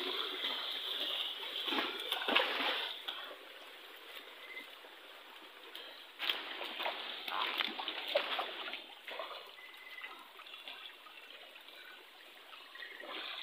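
Running stream water with a steady trickling, and brush rustling as people push through grass and vegetation on foot, louder about two seconds in and again midway.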